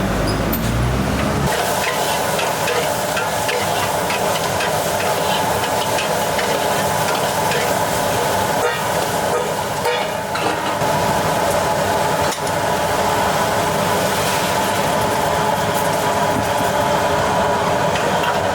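Food frying and sizzling in a hot pan while being stirred, with scattered clicks and scrapes of the utensil against the pan. A low rumble stops about a second and a half in.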